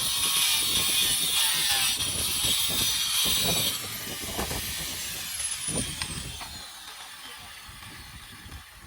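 A power tool running with a loud, even hiss that cuts off about four seconds in. Scattered knocks follow, with a thin whine slowly falling in pitch.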